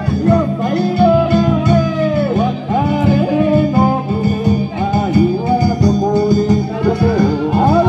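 Music: a singer's voice, sliding and wavering in pitch, over instrumental accompaniment with a steady low drone.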